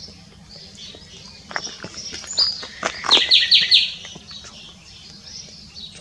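Common nightingale singing: scattered sharp, clicking notes, then a loud phrase of four quickly repeated high notes about three seconds in, fading to softer notes.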